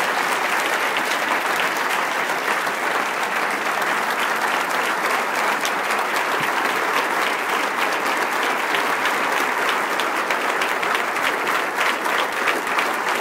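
Audience applauding, a steady dense clapping of many hands that holds at an even level throughout.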